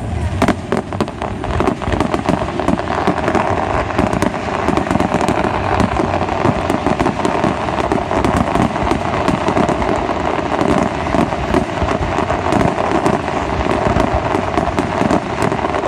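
Fireworks display in a dense, continuous barrage: rapid crackling shells and many overlapping bangs throughout.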